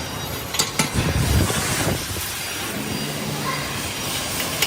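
Metalworking workshop noise: a steady hiss with two sharp knocks about half a second in, a heavy low rumble around the one-second mark, and a low hum that comes in for about a second past the middle.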